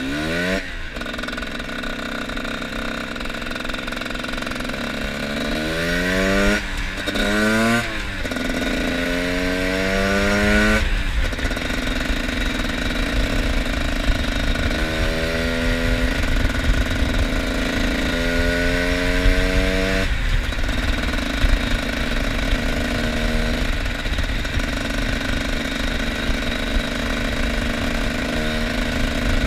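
Two-stroke trail-bike engine accelerating through the gears, its pitch climbing and dropping back at each shift several times, then running steadily for the last third.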